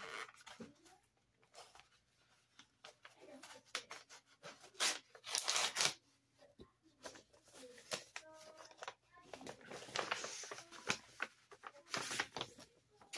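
Packaging being torn open and rustled by hand as a mailed package is unwrapped: irregular rustling and ripping, with louder rips about five seconds in and again near the end.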